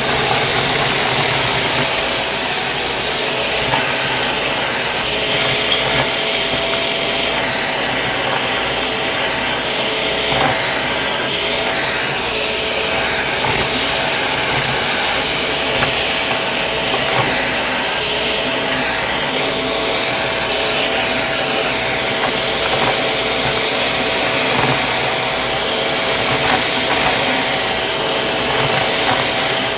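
Shark vacuum running steadily with its crevice tool sucking up sequins and confetti from a carpet. The pieces crunch and crackle as they rattle up the tool, over the motor's steady tone.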